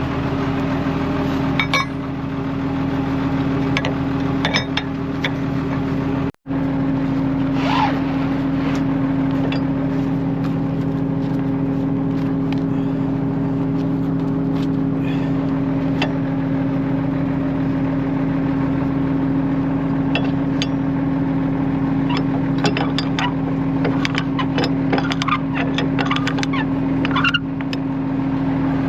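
Log loader's engine running steadily, with scattered knocks and clunks over it. The sound cuts out for an instant about six seconds in.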